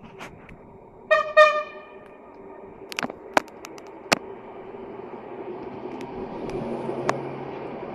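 Renfe train horn giving two short toots about a second in, followed by a few sharp clicks and the growing rumble of a train drawing near.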